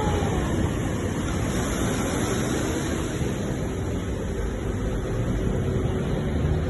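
Ocean surf: a steady, even wash of waves with a deep low rumble underneath.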